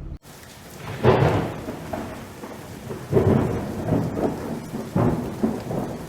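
Wind buffeting the microphone in irregular rumbling gusts over a steady noise, strongest about a second in, again around three seconds, and twice near the end.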